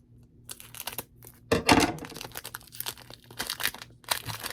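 Foil wrapper of a Pokémon card booster pack crinkling and tearing as it is opened, loudest about one and a half seconds in.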